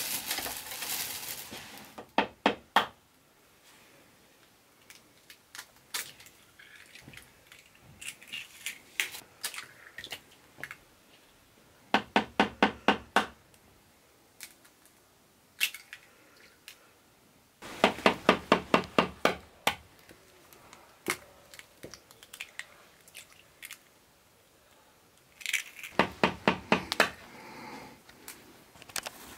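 Four short bursts of rapid knocking, about six knocks a second, with quiet between them; the longest burst comes a little after halfway.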